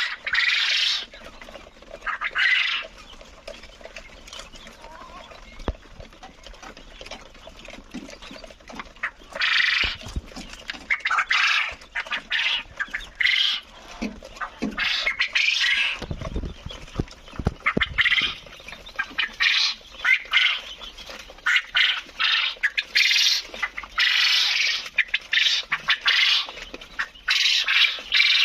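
A flock of quail calling: bouts of shrill chattering calls come again and again, with a quieter spell early on before they pick up and grow frequent through the second half.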